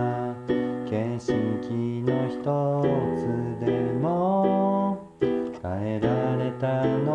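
Instrumental music without words: a keyboard plays the chords and melody of a pop song, with a few notes sliding up in pitch.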